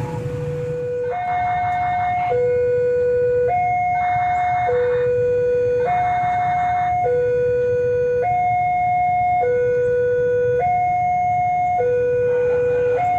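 Railway level-crossing warning alarm sounding: a loud electronic two-tone signal that switches between a low and a higher tone a little over once a second, warning that a train is approaching the crossing. It starts suddenly at the beginning.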